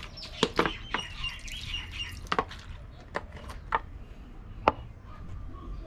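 Scattered sharp clicks and taps, about ten of them, over a low steady rumble. A bird chirps briefly about a second in.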